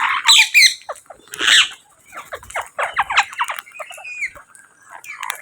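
Parrots calling: two harsh squawks in the first second and a half, then a run of quick chirps and a short whistled call.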